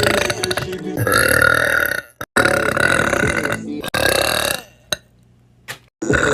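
Girls burping: three long, loud burps one after another with abrupt cuts between them, then two brief clicks near the end.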